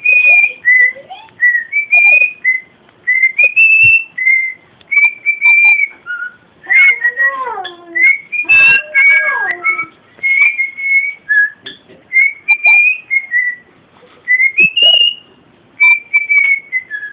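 Cockatiel whistling its learned song: a long run of short, clear whistled notes at a high, fairly even pitch, some sliding up or down, with a busier stretch of falling glides about halfway through.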